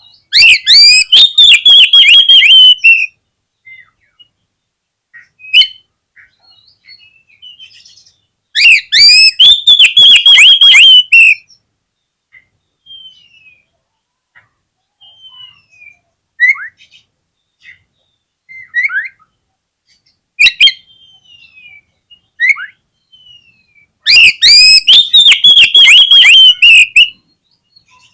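Oriental magpie-robin singing: three loud bursts of about three seconds each, at the start, about nine seconds in and near the end, each a fast run of short repeated notes, with scattered soft whistles and chirps between them.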